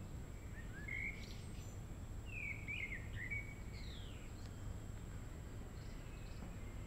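Songbirds singing: a few short chirps and a quick warbled, gliding phrase in the first half, fainter notes later, over a steady low background rumble.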